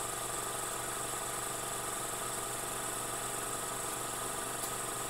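Film projector running: a steady mechanical whirr, with a faint tick near the end.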